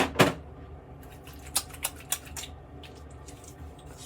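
A bottle and its cap being handled, with small splashes of liquid. Two loud clacks right at the start, then four quicker, lighter clicks about a second and a half in.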